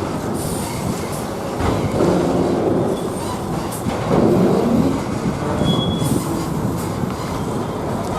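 Heavy buses and trucks running, a steady rumble broken by a few sharp knocks and brief high-pitched squeals.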